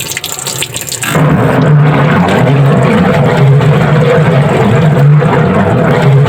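Single-tub washing machine starting up with a clatter of clicks, then about a second in its wash motor and pulsator run under a load of clothes and water: a loud, steady mechanical hum and grind with churning water, swelling roughly once a second. The grinding under load is the sign of a damaged gear case.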